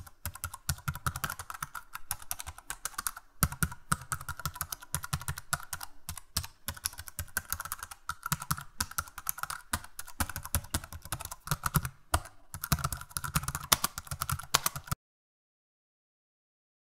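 Computer keyboard typing sound effect: a fast, irregular run of key clicks that cuts off suddenly about two seconds before the end.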